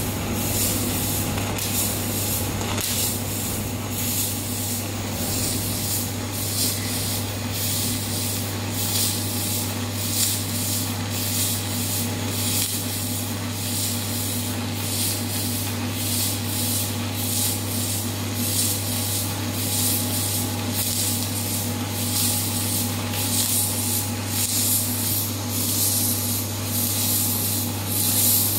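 Robotic MIG welding arc on thick metal tube and plate, a steady crackling hiss over a constant low hum.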